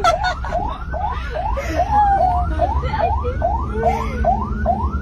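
Ambulance siren in a fast yelp, quick rising sweeps repeating about three times a second, over a steady low vehicle rumble.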